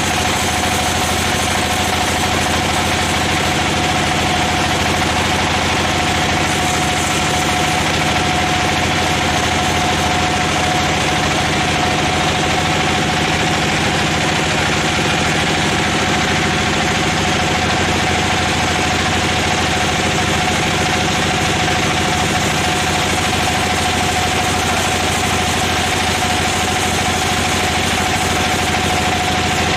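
Sawmill machinery running steadily: a loud, unchanging mechanical drone with one constant tone standing out above it.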